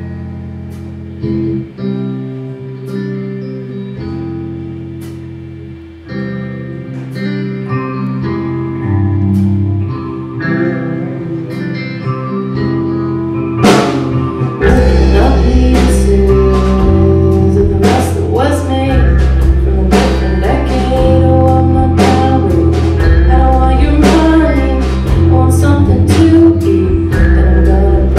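Live rock band with electric guitars: a quiet guitar-and-bass intro, then about fourteen seconds in a crash brings in the drums and the full band, much louder.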